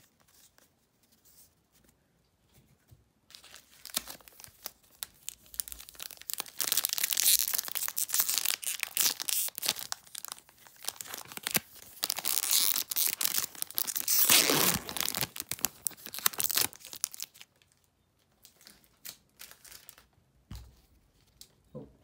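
Foil wrapper of a Magic: The Gathering Kaldheim set booster pack crinkling and tearing as it is ripped open by hand. The sound starts a few seconds in and stops a few seconds before the end.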